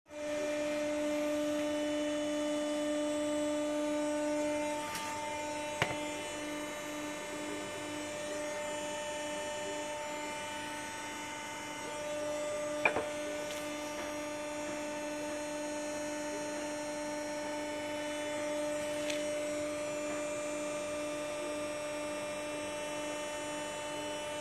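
An industrial roller machine runs with a steady, even-pitched motor hum as it turns a roller covered in nonwoven fabric. Two sharp clicks stand out, one about six seconds in and a louder one about thirteen seconds in.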